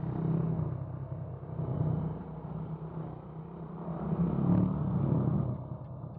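Motorcycle engine running under way, its sound swelling and easing several times as the throttle is opened and closed.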